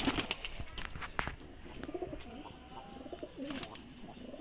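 Saharanpuri pigeon's wings clapping and flapping during the first second or so as it takes off from the hand, followed by domestic pigeons cooing from about two seconds in.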